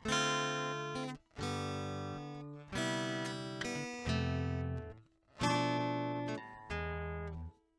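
Acoustic guitar music: about six chords, one every second or so, each ringing out and fading before the next.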